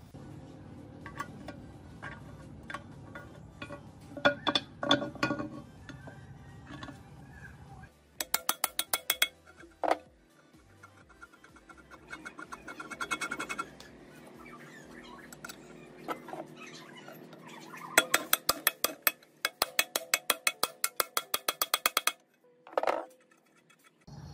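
Metal gearbox parts clinking and knocking as a gear, shaft and ball bearing are handled and fitted into a cast-iron gearbox housing, with two runs of quick, evenly spaced clicks.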